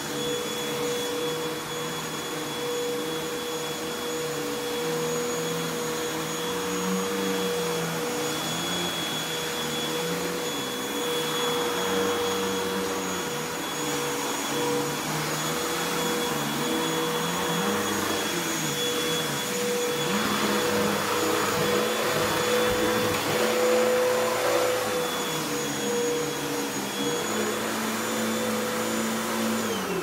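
Upright vacuum cleaner running on carpet: a steady high motor whine over the rush of air, with lower tones wavering as it is pushed along. At the very end it is switched off and the whine falls away.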